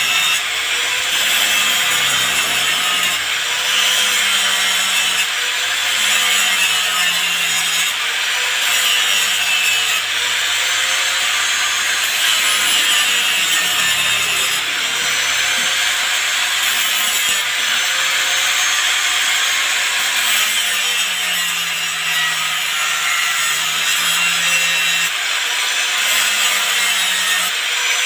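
Steady, harsh cutting and scraping as a burned-out washing-machine motor is taken apart.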